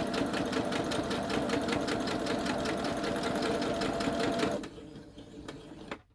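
Electric sewing machine stitching a seam at a steady speed, its motor running with a fast, even rattle of needle strokes. It stops abruptly about four and a half seconds in, followed by a few faint clicks.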